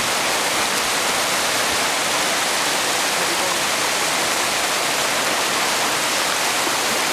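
Whitewater rapids rushing over rocks: a steady, unbroken rush of water close by.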